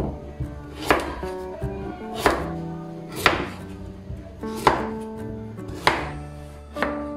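Chef's knife chopping raw pumpkin on a wooden cutting board: about six sharp chops, roughly one a second, over soft background music.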